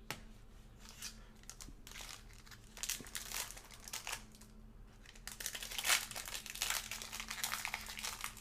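Plastic wrapping crinkling and tearing as a sealed box of trading cards is opened. It is an irregular run of crackles that gets busier and louder in the second half.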